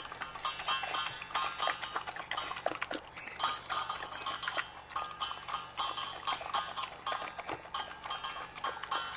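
Alaskan Malamute puppy eating wet raw food from a metal bowl: rapid, irregular chewing and lapping, with her muzzle knocking and clinking against the bowl.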